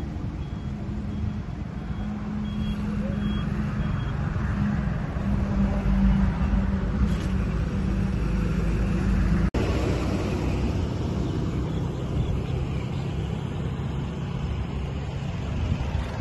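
Steady motor traffic with an engine humming, and a faint high beep repeating about twice a second for the first few seconds. The sound drops out for an instant about halfway through.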